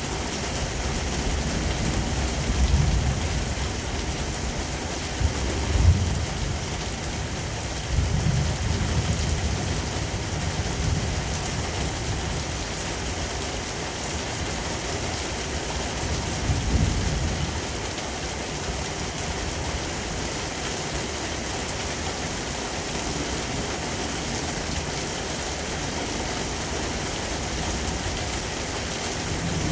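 Rain falling steadily, with low rumbles of thunder rising and fading several times in the first twenty seconds, the strongest about six seconds in.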